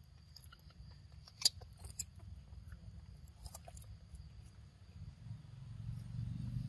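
Plastic snack wrapper crinkling and crackling as a macaque handles it, with sharp crackles about one and a half and two seconds in and more around three and a half seconds. A low rumble builds near the end.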